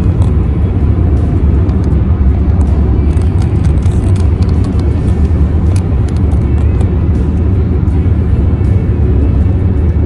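Steady low rumble of road and wind noise inside a car's cabin while driving at highway speed, with faint scattered high clicks.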